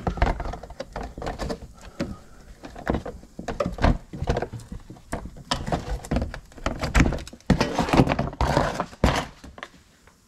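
Irregular knocks, taps and scraping of a plastic wheel well liner being handled and worked loose, with a denser stretch of plastic scraping and rubbing about three quarters of the way in.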